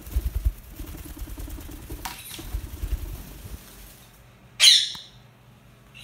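Indian ringneck parakeet taking off and flying, its wings flapping in quick beats for about three and a half seconds. About four and a half seconds in, it gives one loud, short squawk.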